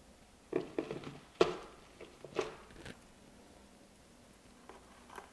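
LECA clay pebbles clattering and a pot knocking as a potted begonia is set into a self-watering pot. A handful of short, sharp clatters come over the first three seconds, with a few faint ticks near the end.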